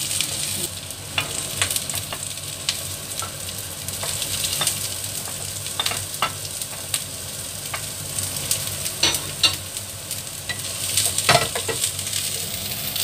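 Sliced shallots, garlic and ginger sizzling in hot oil in a nonstick frying pan, stirred with a wooden spatula that clicks and scrapes against the pan every second or so.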